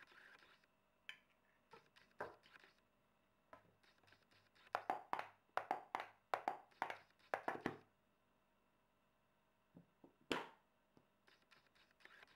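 Thin plastic water bottle crinkling and crackling as it is squeezed, in a quick run of about a dozen crackles, then one louder crackle near the end as the squeeze is let go to draw the egg yolk up into the bottle.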